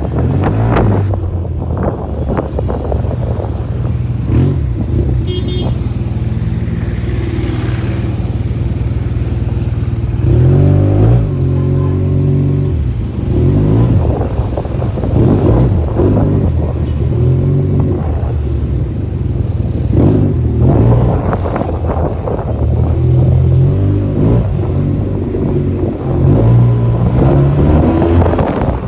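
Yamaha TMAX 530 scooter's parallel-twin engine running while riding, its pitch rising and falling with the throttle. The strongest revving comes about ten to thirteen seconds in and again in the last third.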